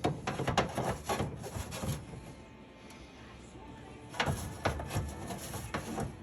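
Electrical tape being pulled off the roll and wrapped around a bundle of wires, giving irregular crackling rips in bursts, with a quieter pause in the middle.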